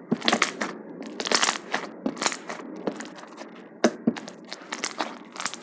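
Fluffy slime being squeezed and pressed by hand, giving a run of irregular crackling clicks and pops, several a second.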